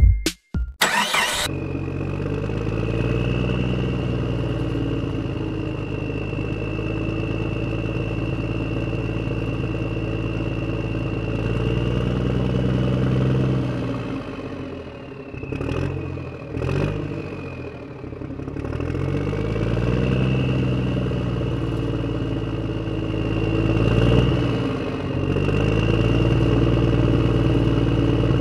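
A tractor engine running and revving, its pitch rising and falling in slow swells over a steady high whine. It falters briefly about halfway through, then picks up again.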